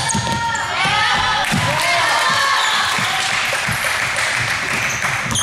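Basketball bouncing on a hardwood gym floor, with several dull thuds, and sneakers squeaking in short chirps over the first couple of seconds, in a reverberant gym.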